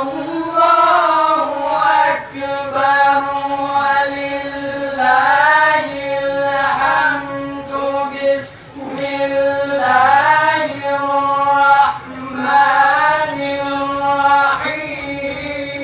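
Young men reciting the Quran in unison into a microphone, in slow melodic tajwid style: long held notes with ornamented turns between them, pausing briefly for breath a few times.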